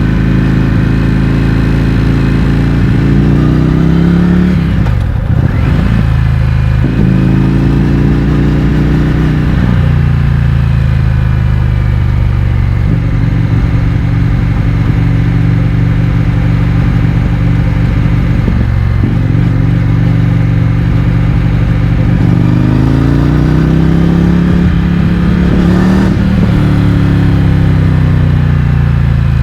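Indian FTR 1200's V-twin engine through an Akrapovič exhaust with the baffles removed, heard from on the bike while riding. The engine pitch climbs under acceleration and drops at each upshift, about 5 s and 26 s in, with steadier cruising in between.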